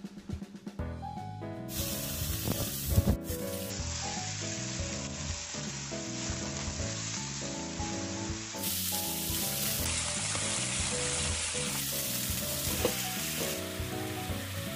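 Pork belly and soy-based sauce sizzling in a frying pan, a steady hiss, over background music.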